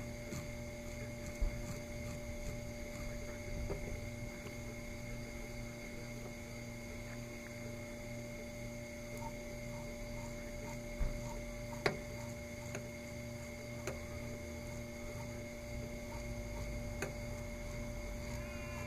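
Steady electrical hum holding several fixed tones, with a few faint clicks or taps.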